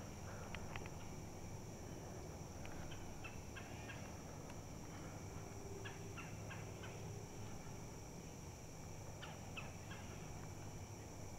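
A bird calling in short, clipped notes, in three brief clusters of a few notes each, over a steady high hum.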